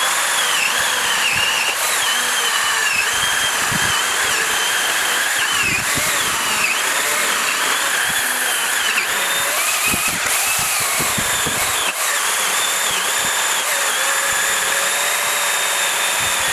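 Vitals Master Series EKZ 224 corded electric chainsaw cutting through a log, its motor whine dipping and recovering as the chain bites into the wood.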